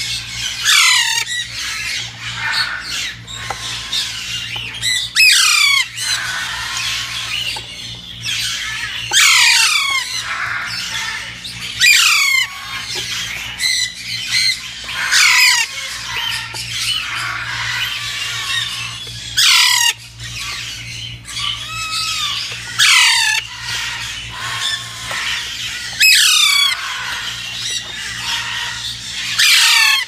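Young Alexandrine parrots squawking: loud, harsh calls that fall in pitch, every few seconds, over steady softer chattering, as they are hand-fed from a feeding stick.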